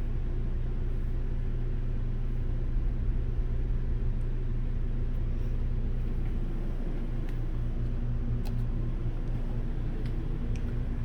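Massage recliner's vibration motor running with a steady low hum, its pattern shifting slightly about seven seconds in, with a few faint ticks.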